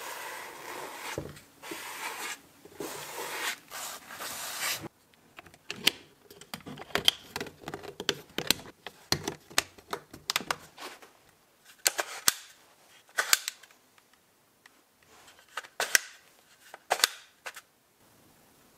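Sponge wet with plastic restorer scrubbing over the plastic housing of a Metabo WB 18 LTX cordless angle grinder in several noisy strokes. After about five seconds it gives way to a string of sharp plastic clicks and knocks as the grinder's body is handled.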